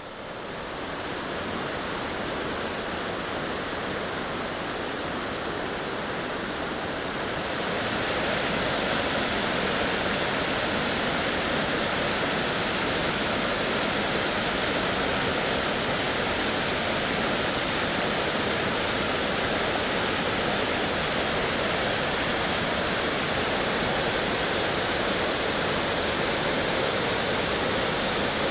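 Waterfall, its falling water making a steady, even rush that grows louder about seven seconds in.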